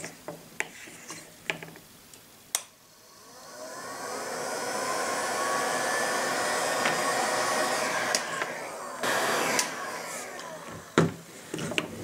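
Heat gun blowing hot air to shrink heat-shrink tubing over soldered wire joints. It starts about three seconds in, with a whine that rises as the fan comes up to speed, runs steadily, and eases off near the end. A few light handling clicks come before it and a sharp knock shortly before the end.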